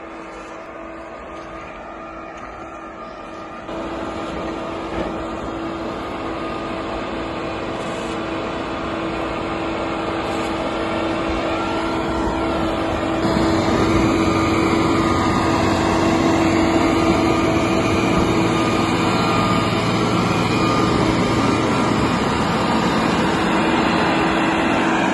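A motor grader's diesel engine running steadily and getting louder as the machine approaches. The loudness jumps about four seconds in and again about halfway through.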